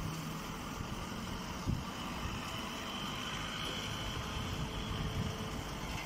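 Hydraulic straw baler's power unit running steadily, a low mechanical rumble with a faint high whine, with some wind noise on the microphone.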